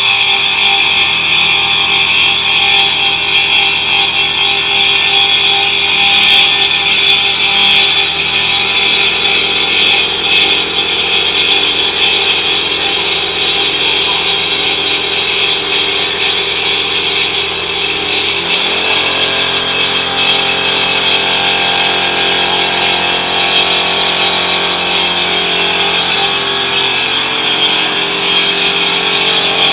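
A 5-axis CNC cutting machine running loudly and steadily, with a hissing cutting noise over several steady motor tones that step to a new pitch about two-thirds of the way through.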